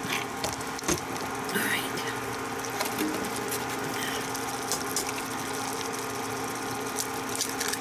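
Steady hum of an induction cooktop running under a frying pan, with eggs frying quietly in butter and a few sharp clicks and taps as an egg is cracked over the pan.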